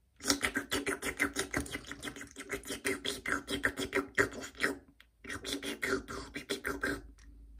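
Rhythmic music with a quick, even beat of sharp hits over held tones, breaking off briefly about five seconds in before starting again.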